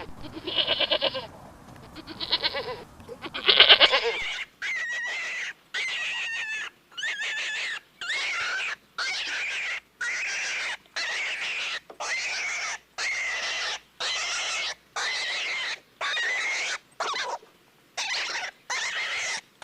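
Livestock bleating: a few loud, wavering bleats, then a long run of shorter calls evenly spaced about a second apart.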